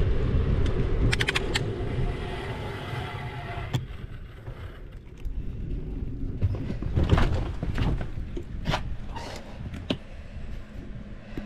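Wind rumbling on the microphone and road noise of a bicycle ride, dying down over the first half as the bicycle slows and stops. A quick run of clicks about a second in, then several sharp clicks and knocks as the bicycle is brought to rest.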